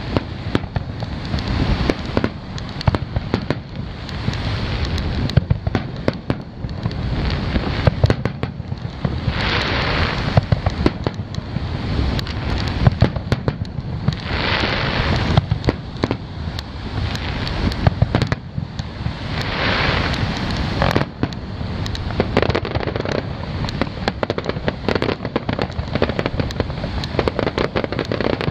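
Aerial fireworks display: a rapid, unbroken string of bangs and booms from shells launching and bursting, several going off at once. There are louder spells of hissing noise about ten, fifteen and twenty seconds in.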